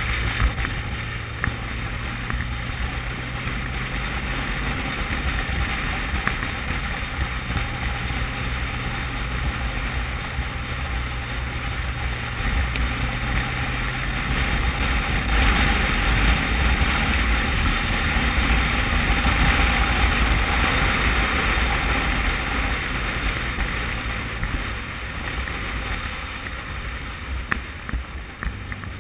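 Motorcycle at road speed heard from a bike-mounted camera: wind rushing over the microphone above the steady hum of the engine and tyres. The wind noise swells about halfway through and eases near the end as the bike slows toward a toll booth.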